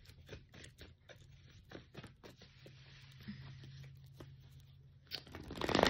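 A deck of tarot cards being shuffled by hand: a run of soft clicks and card slaps, with a louder rustling swish of cards near the end.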